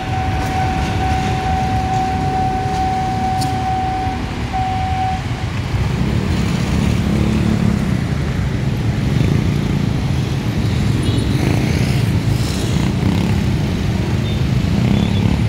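Vehicle engines running with a steady, loud rumble that grows louder about six seconds in. A single steady high tone is held over the first five seconds, then stops.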